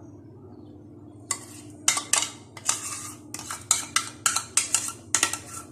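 A spoon scraping and knocking against a bowl while thinned, spiced yogurt is spooned out over pakoras. Repeated sharp knocks and scrapes, about two or three a second, begin about a second in.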